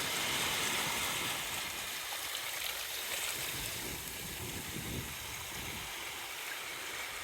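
Sea water washing over shoreline rocks, a steady hiss, with wind buffeting the microphone in low rumbles.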